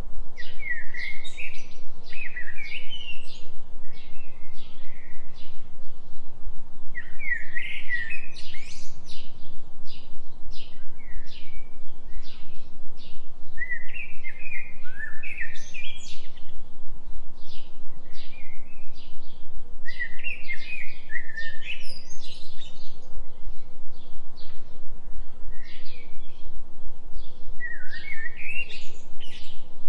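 Forest birdsong: a songbird sings a short phrase of quick up-and-down notes about every six to seven seconds, over a steady run of short, high, repeated chirps. A steady low tone runs underneath, the bed of a binaural delta-wave relaxation track.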